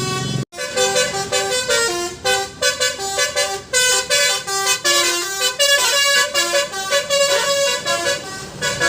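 Bus 'telolet basuri' musical horn playing a tune of short stepped notes, starting after a brief break about half a second in.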